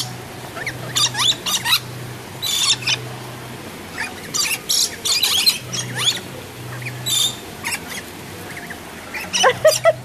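Rainbow lorikeets calling with short, high-pitched cries scattered irregularly, several a second at times.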